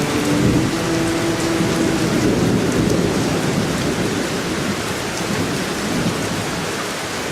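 Steady heavy rain with a low rumble of thunder about half a second in. A held musical note fades out about two seconds in.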